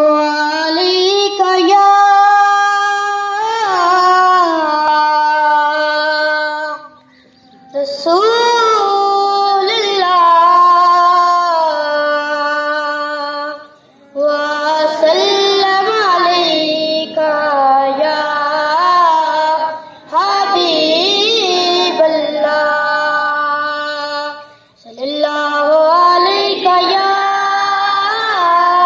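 A boy singing a Punjabi naat solo and unaccompanied, amplified through a microphone and loudspeakers. He sings in long, ornamented, held phrases with short pauses for breath about 7, 14 and 25 seconds in.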